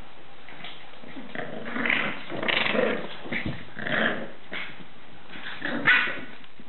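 Two Staffordshire bull terrier puppies growling as they play-fight, in irregular short bursts about two, three and four seconds in, the loudest near the end.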